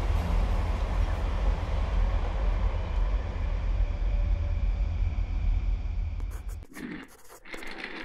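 Double-decker bus engine rumbling steadily close by with the hiss of road noise, cutting off suddenly near the end.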